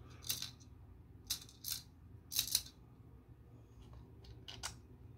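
Hands handling 3D-printed PLA plastic case parts: about five faint, short scrapes and clicks spread over a few seconds.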